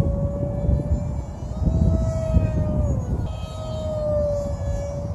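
Small foam RC plane's 2205 brushless motor and propeller whining overhead, its pitch rising and falling twice. Wind rumbles on the microphone underneath.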